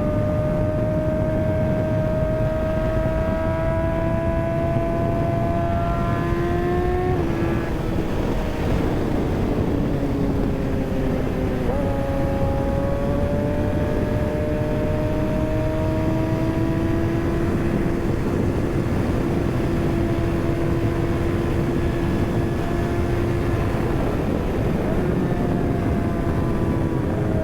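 Kawasaki ZX-6R's inline-four engine under way: its pitch climbs steadily, drops at about seven seconds and winds down, jumps up again near twelve seconds, then holds fairly steady. Wind rushes over the microphone.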